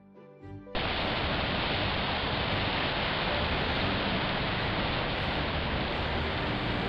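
Ocean surf breaking on a rocky shore: a steady rushing noise that cuts in abruptly under a second in, after the tail of soft background music.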